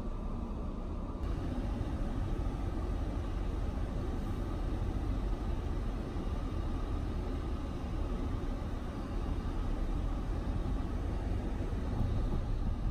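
Steady road and engine noise of a moving car, heard from inside the cabin, getting a little louder about a second in.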